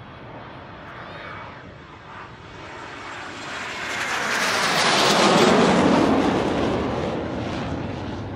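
A pair of BAE Hawk T1 jets with Adour turbofans taking off and climbing away, their jet noise building to a loud peak about five seconds in, then easing off.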